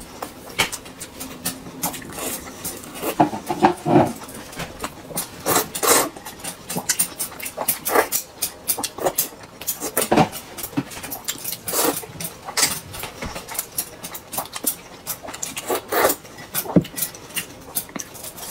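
Close-miked eating sounds of a person eating noodle soup: a string of irregular short slurps and chewing smacks, with no pause longer than a second or so.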